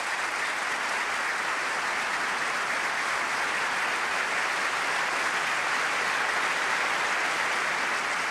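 Audience applauding steadily, a dense clapping that eases off slightly near the end.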